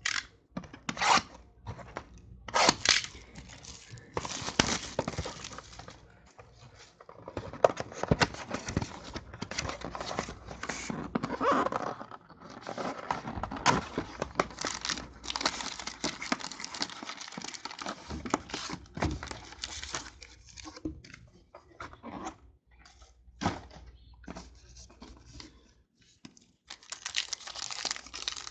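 Trading-card packaging being torn open and crinkled by hand: irregular bursts of tearing and rustling wrapper as a box of football cards is opened.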